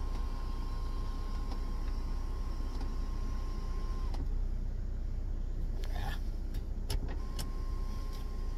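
Audi Q7's panoramic sunroof sliding open under its electric motor: a steady motor hum with several short clicks in the second half.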